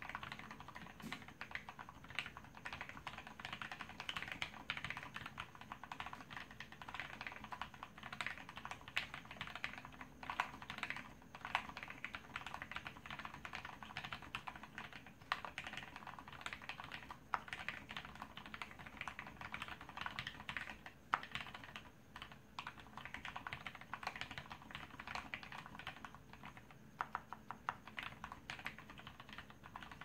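Continuous fast typing on a plateless J80 mechanical keyboard with Gateron Milky Clear linear switches lubed with Krytox 105 and dye-sub PBT keycaps: a dense, steady run of key clacks.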